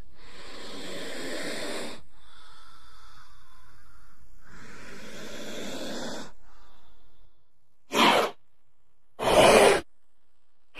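King cobra hissing: two long, breathy hisses, then two short, louder bursts of hiss near the end.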